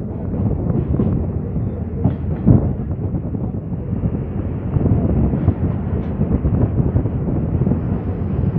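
Moving train heard from inside a carriage: a steady rumble and rattle of running wheels and coaches, with a few sharp knocks.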